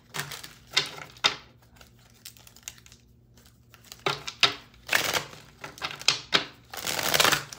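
Tarot deck being shuffled by hand: cards tapping and flicking in the first second, a quiet stretch, then a cluster of card clicks and a fast riffle near the end.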